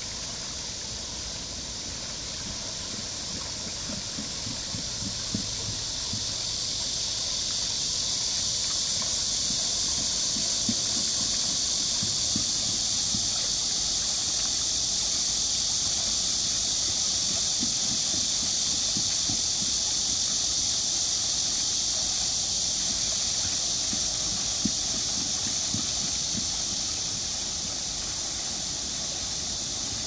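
A chorus of cicadas buzzing steadily, the loudest sound, swelling louder a few seconds in and easing near the end. Under it, water splashes and trickles off a small turning waterwheel into a pond.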